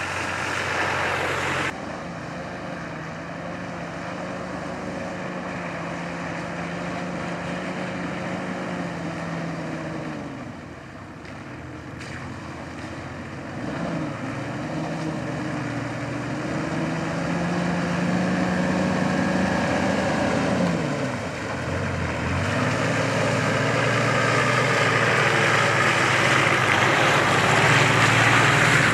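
Four-wheel-drive vehicle engine driving along, its pitch rising and falling several times as it revs and eases off. A rushing hiss builds over the last several seconds.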